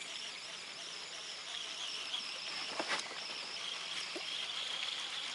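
Steady high-pitched chirring of a summer insect chorus, with one sharp click about three seconds in.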